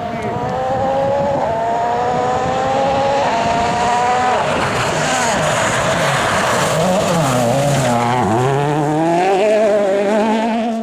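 Rally car engine accelerating hard up through the gears, its pitch climbing and dropping back at three quick upshifts in the first four seconds. It passes with a rush of tyre noise, then the pitch wavers and falls as it brakes and downshifts, before climbing again near the end.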